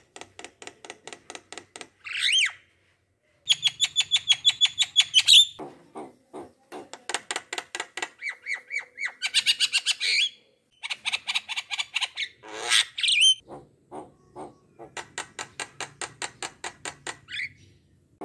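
A bird calling: fast rattling trains of short clicks alternating with a few squawks that rise and fall in pitch.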